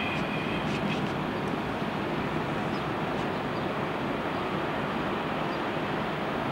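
Ocean surf and wind making a steady rushing noise, with a few faint clicks and a brief high squeak in the first second.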